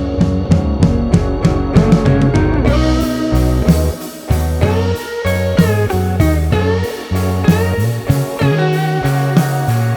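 Background music: a guitar-led track with a slide guitar melody over a steady bass and drum beat.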